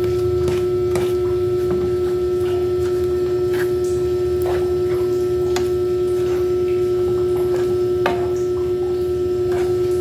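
A steady hum held at one pitch throughout, over a low rumble, with scattered light scrapes and taps of a wooden spatula stirring dry sugar in a metal frying pan.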